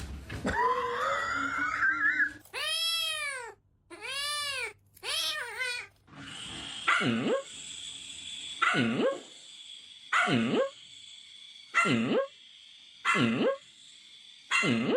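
A pet animal calling over and over. A rising cry comes first, then three pitched calls that rise and fall. After that come about six more calls at an even pace, roughly one every second and a half.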